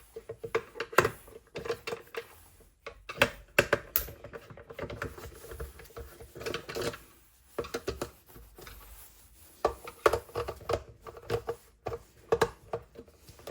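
Screws being taken out of the back of a plastic radio case with a screwdriver: irregular clicks, taps and scrapes of the tool and the casing being handled.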